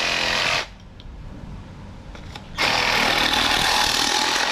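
A cordless reciprocating saw with a short metal-cutting blade cutting through a thin 40 mm plastic pipe. It runs, stops about half a second in, then runs again from about two and a half seconds in.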